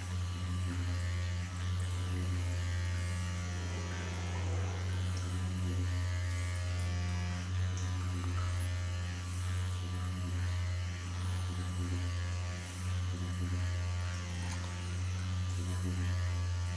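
A steady, low electrical hum.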